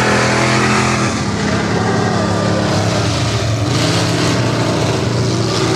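Engines of lifted mud-bog trucks running and revving, the pitch dropping and climbing again a couple of times.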